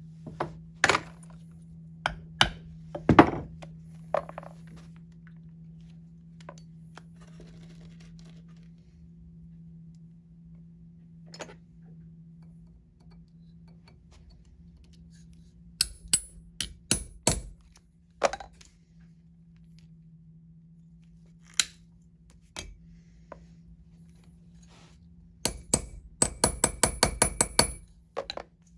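Wooden-handled hammer striking a metal rivet setter to peen a solid copper rivet down onto its burr and dome its head. A few sharp knocks and clicks come first, then scattered hammer blows, then a quick run of about a dozen light taps near the end.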